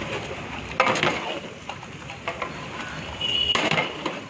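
A long metal ladle stirring thick mutton gravy in a large metal biryani pot, with several irregular scrapes and clunks of the ladle against the food and pot.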